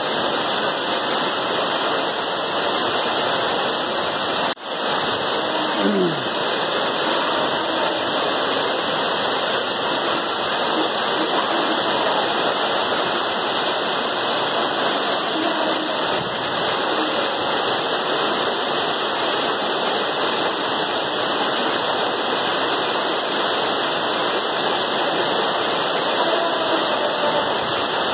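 Steady rush of water from a mountain waterfall and its stream. It cuts out briefly about four and a half seconds in.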